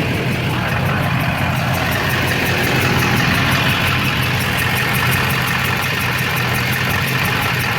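Chevrolet/GMC LB7 Duramax 6.6-litre V8 turbo-diesel idling steadily, with a stuck fuel injector on the driver's side bank.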